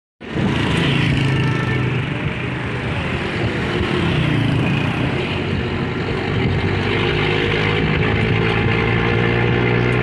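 A moving vehicle heard from on board: a steady engine hum under constant road and wind noise.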